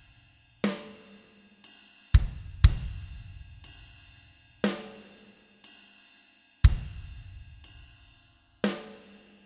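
Slow drum-kit beat, about one hit a second, each hit ringing out with cymbal. Deep kick-and-cymbal strikes alternate with snare-like hits: the drum opening of a play-along backing track, with no melody over it.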